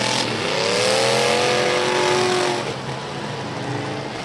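Demolition derby car engines revving hard: one climbs in pitch, holds at high revs for about two seconds, then eases off, over a steady hiss of noise.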